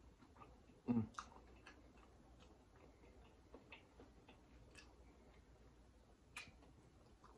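Faint, scattered sticky clicks of eating: fingers picking at butter-sauced lobster tail meat and wet mouth sounds, with one louder soft knock about a second in.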